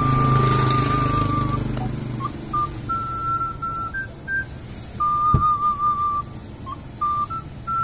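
Small end-blown flute playing a melody of clear, high single notes, with vibrato on the long held notes. A motorcycle with a sidecar rumbles past during the first couple of seconds, and there is a sharp click about five seconds in.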